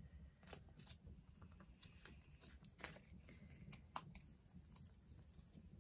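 Faint handling of photocards and their plastic sleeves: a few scattered small clicks and rustles, the sharpest about four seconds in, over near silence.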